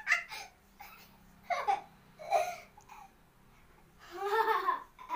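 A boy laughing in several short bursts, then a longer voiced cry about four seconds in.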